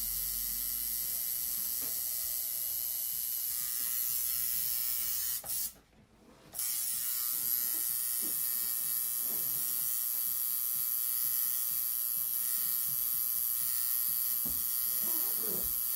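Tattoo machine buzzing steadily. It cuts out for about a second roughly five and a half seconds in, then starts up again.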